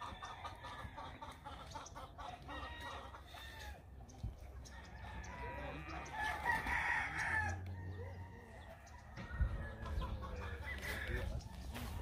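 Farmyard chickens: hens clucking and a rooster crowing, with the loudest call about six seconds in.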